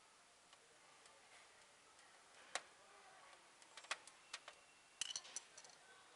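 Faint small clicks and taps of a screwdriver and wires against the terminal blocks and relays of a machine's electrical cabinet: a single sharp click about two and a half seconds in, then a scatter of quick clicks over the next three seconds.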